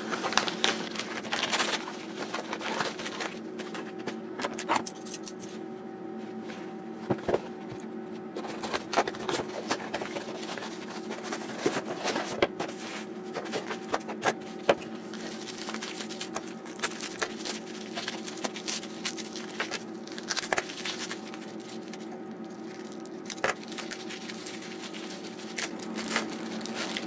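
Padded paper mailer and its packing being opened by hand: bubble wrap and clear plastic bags crinkling and rustling, with scattered clicks and scrapes. A steady low hum runs underneath.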